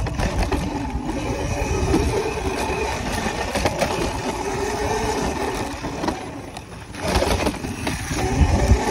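Dirt bike running along a dirt track, its pitch rising and falling with the throttle, with heavy wind buffeting on the handlebar-mounted microphone. It eases off about six seconds in and picks up again a second later.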